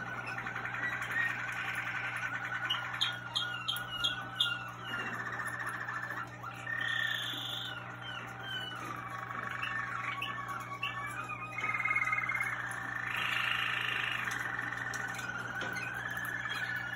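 Waterslager song canaries singing continuously in rolling trills, with bursts of short repeated notes and long held whistles that slide down in pitch. A steady low hum runs underneath.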